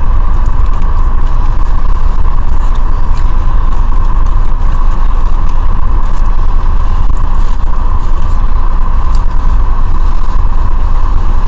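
Steady, loud low rumble with a constant hum from a running car.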